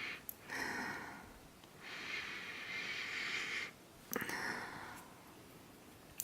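A person breathing in deeply through the nose to smell a bar of soap: four long sniffing breaths, the longest near the middle, with short pauses between them.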